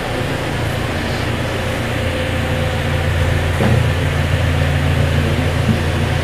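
Toyota Fortuner's petrol engine idling steadily, a low hum that grows a little stronger about two seconds in.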